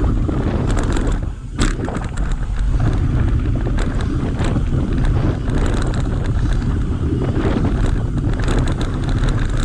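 Wind buffeting the microphone of a camera on a mountain bike riding fast down a dirt trail, with tyre roar and the steady clatter and rattle of the bike over bumps. About a second in the noise briefly drops, then a sharp knock.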